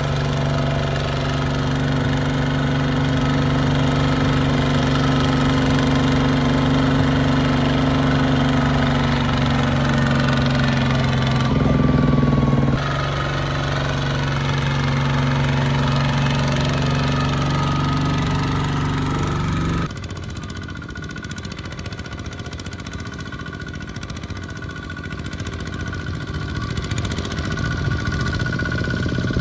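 Single-cylinder diesel engine of a two-wheel walking tractor running steadily, with a brief louder surge about twelve seconds in. About two-thirds of the way through, it gives way abruptly to a quieter engine of another walking tractor, which grows louder near the end.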